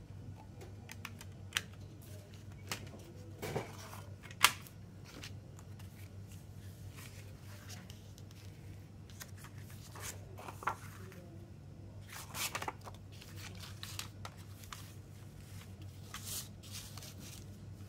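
Hands handling a CD, its plastic jewel case and paper inserts: scattered plastic clicks and paper rustles, with one sharp click about four and a half seconds in, over a low steady hum.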